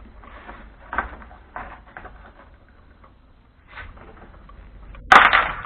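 Hands working on a scooter: scattered small knocks and clicks of parts being handled, then a louder sharp clatter about five seconds in.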